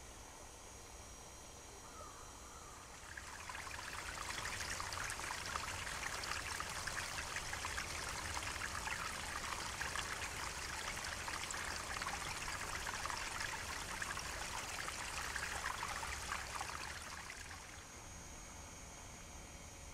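Small woodland stream splashing and trickling down a rocky ravine, a steady rush of running water. It comes up about three seconds in and drops away near the end.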